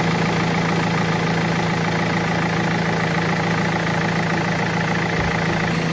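BMW E46 320d's four-cylinder turbodiesel idling steadily, running again with its old injector refitted.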